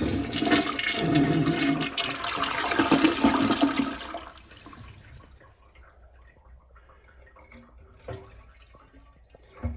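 Toilet flushing with its water supply shut off to empty it: a rush of water for about four seconds that then dies away, with no refill running after it. A couple of faint knocks near the end.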